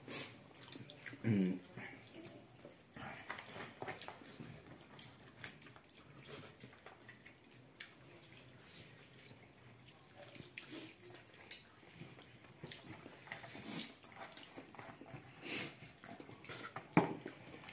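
Quiet eating sounds: fingers working rice on banana leaves, with scattered soft clicks and smacks of chewing. A brief vocal sound comes about a second in.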